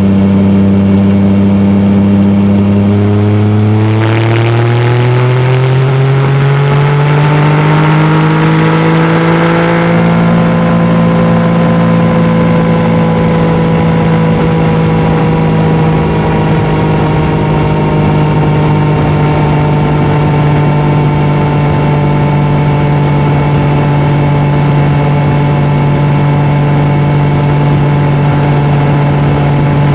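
Yamaha MT-09's three-cylinder engine through an aftermarket Akrapovic exhaust, heard from the rider's seat at highway speed. It runs steady for a few seconds, pulls up in revs over about seven seconds, then settles to steady cruising revs.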